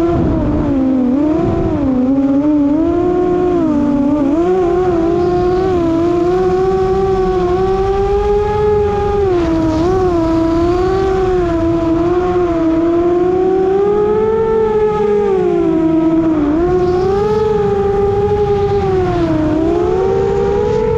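FPV racing quadcopter's motors and propellers whining in flight, the pitch rising and falling over and over with the throttle, with wind rumble underneath.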